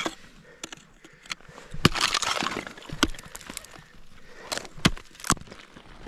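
Ice tools striking and breaking ice: a series of sharp, irregular hits, with a longer crackle of shattering ice about two seconds in.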